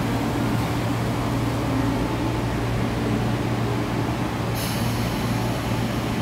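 Steady machinery hum of an MTR East Rail line electric train standing at a station platform. A sudden high hiss starts about four and a half seconds in and keeps going.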